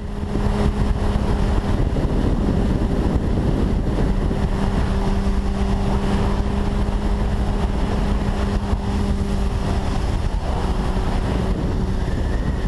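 Motorcycle engine running at a steady speed under heavy wind noise on the microphone, its note holding steady throughout.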